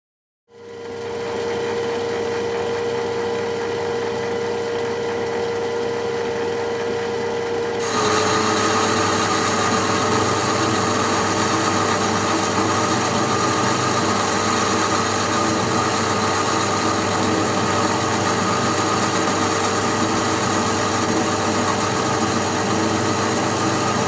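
Taifun Blizzard 22cc model diesel engine running steadily at high speed with a whining tone. About eight seconds in it gets louder and harsher and its pitch dips slightly.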